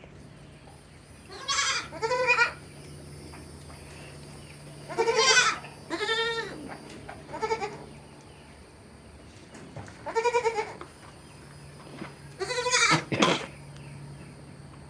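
Goats bleating, about seven wavering calls at irregular gaps, with a short sharp burst just after the last call near the end.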